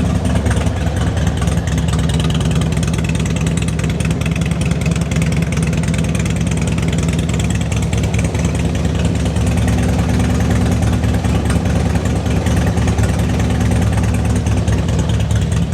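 2002 Harley-Davidson Road King's Twin Cam 88 V-twin idling steadily, running after being started off a battery charger; the owner traces the earlier no-start, where it only clicked, to a weak battery.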